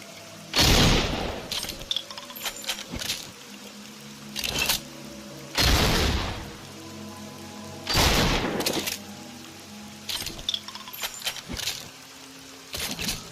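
Double-barrel shotgun firing three loud shots, about half a second, five and a half and eight seconds in, each with a short ringing tail. Between shots come clusters of sharp metallic clicks from handling the gun's action.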